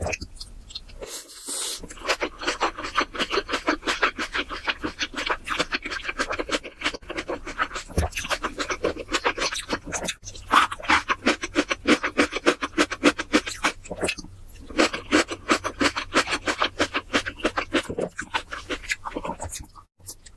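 Close-miked eating sounds: rapid, regular chewing and wet mouth noises, pausing briefly about ten and fourteen seconds in.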